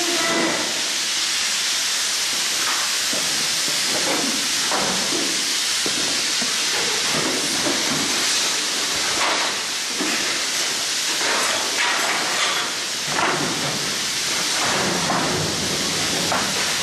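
A steady, loud hiss, with irregular rustling and handling noises over it.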